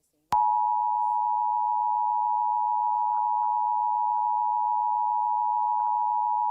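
Emergency Alert System attention signal: two steady pure tones near 853 and 960 Hz sounded together, starting about a third of a second in. It marks the start of an emergency alert, here a tornado warning.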